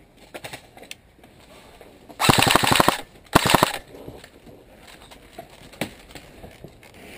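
Airsoft rifle firing two rapid bursts of full-auto shots, the first just under a second long and the second about half a second, with faint scattered shots from other guns in between.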